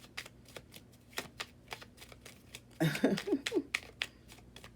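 A deck of tarot cards being shuffled and handled by hand: a run of light, irregular card clicks and snaps, several a second.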